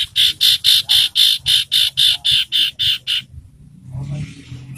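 Common iora calling: a fast, even series of about fourteen short high notes, about four a second, that stops a little past three seconds in. A brief soft hiss follows near the end.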